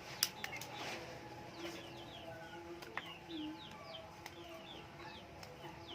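Small birds chirping over and over with short falling calls, with some longer, lower bird calls beneath them. A few sharp clicks or taps stand out, the clearest near the start and about three seconds in.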